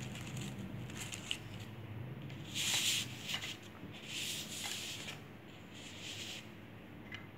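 Paper rustling and rubbing as it is handled, in several short bursts, the loudest about three seconds in, with a few small clicks.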